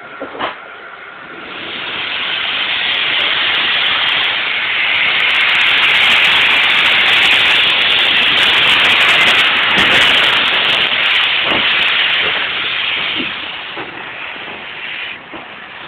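Steam hissing from rebuilt Bulleid West Country class steam locomotive 34016 Bodmin. The hiss swells up after a second or so, holds loud and steady, then fades over the last few seconds.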